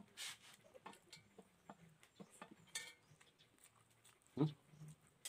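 Quiet eating sounds: chewing and small clicks at a meal, with one brief low vocal sound about four seconds in.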